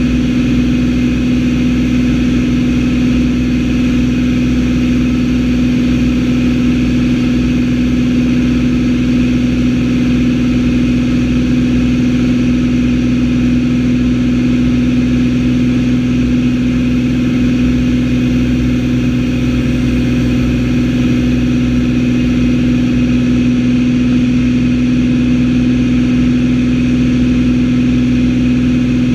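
Single-engine propeller airplane's engine and propeller running steadily in cruise, a loud even drone with a strong low hum, heard inside the cockpit.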